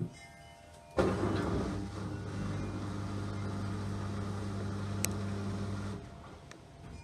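LG 6.5 kg washing machine's motor turning the drum with a steady hum. It starts suddenly about a second in and stops after about five seconds, one stroke of the machine's start-stop wash or rinse action.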